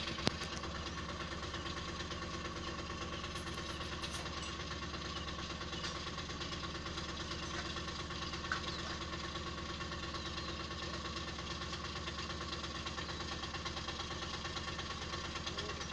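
Vehicle engine idling steadily, heard from inside the cab, with a sharp click about a quarter second in.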